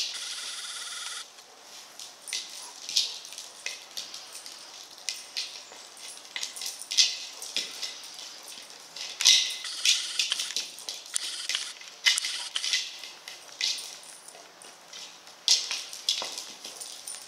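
A Rottweiler pushing a hard plastic ball over grass with its muzzle and paws: irregular short knocks and scrapes against the plastic. A steady hiss runs for about the first second, then stops.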